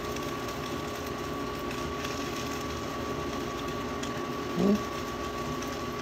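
A steady mechanical hum with a few fixed tones, plus a short rising sound about four and a half seconds in.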